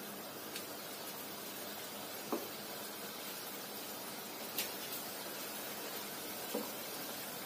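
Besan pakoda batter frying in hot oil in a kadhai: a steady sizzle, with a few light clinks of steel spoons as more batter is dropped in.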